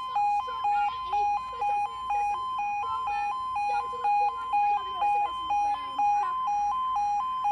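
UK level crossing yodalarm sounding a steady two-tone warble, switching between a lower and a higher tone about twice a second, warning road users that a train is approaching and the barriers are closing.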